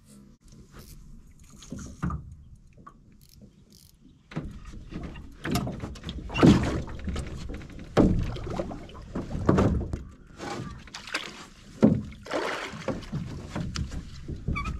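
Irregular splashing and knocking start about four seconds in: a hooked fish is fought at the surface and scooped with a landing net beside an aluminium boat, with footfalls and bumps on the hull.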